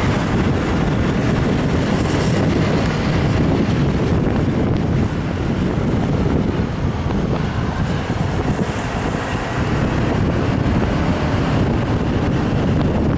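Steady rumble of wind buffeting the microphone of a camera on a moving vehicle, mixed with road and traffic noise.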